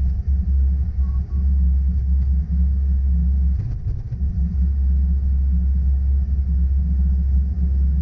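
Bobcat S595 skid-steer's diesel engine running steadily under load as it pushes snow with a front plow, a low rumble heard from inside the cab. Two short beeps sound about a second in.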